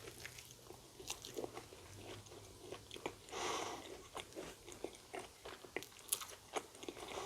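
Close-up chewing of a Korean corn dog: scattered small crunches and wet mouth clicks as the fried coating and filling are chewed, with a brief louder hiss a little over three seconds in.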